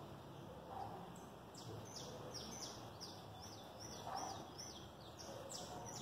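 A bird singing a quick run of about ten high notes, each sliding down in pitch, starting about a second and a half in, over faint steady background noise.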